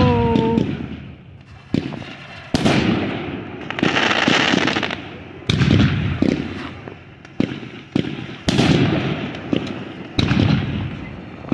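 Aerial fireworks shells bursting overhead: four loud booms a few seconds apart, each trailing off in a long rumble, with crackling and hissing from the bursts between them.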